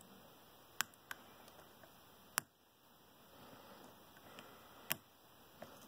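A few sharp, separate metal clicks at irregular spacing, the loudest about two and a half and five seconds in, from a lock pick working the pins of a Master Lock No. 19 padlock under steady tension.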